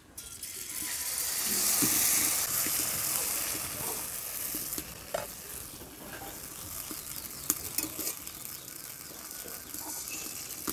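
Vegetable-and-flour batter ladled into hot oil in a steel kadai starts sizzling suddenly, loudest about two seconds in, then settles into a steadier sizzle with clicks and scrapes of the ladle spreading the batter.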